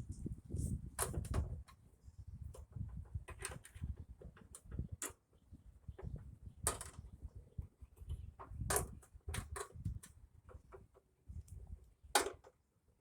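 Heater box parts and control cables being handled and fitted by hand: scattered clicks and light knocks over low rubbing and rumbling, with a sharper knock about twelve seconds in.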